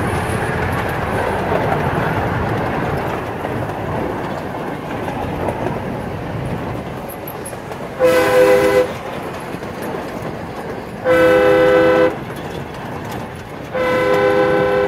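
Horn of a small ride-on miniature diesel-style locomotive sounding three blasts of about a second each, starting about eight seconds in, with the last one a little longer. Under the horn runs the steady rolling noise of the train and its open passenger cars. The blasts come as the train nears a road crossing.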